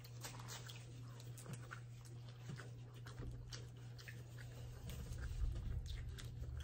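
Eating from a seafood boil: quiet chewing of corn on the cob, then many small clicks and crackles of boiled crawfish shells as gloved hands dig through the pile, with a low rumble about five seconds in.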